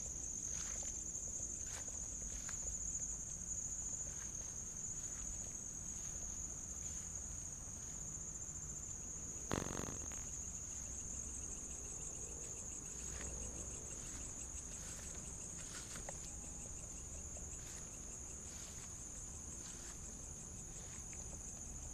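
Crickets chirring in a steady, high, unbroken drone, with faint scattered taps and one sharp knock about ten seconds in.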